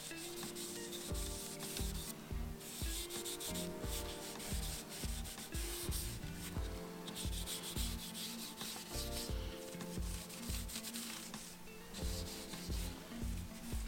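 A cloth rubbing an oil finish into a wooden bicycle rim, under background music with a steady beat and a simple melody.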